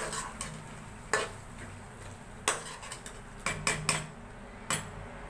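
Metal slotted spatula stirring a thick chicken curry in a metal karahi, clanking and scraping against the pan in sharp, irregular knocks, with a quick run of three or four near the end.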